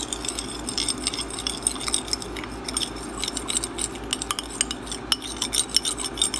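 Metal teaspoon stirring quickly in a ceramic bowl of oil and liquid dye, clinking and scraping against the bowl many times a second.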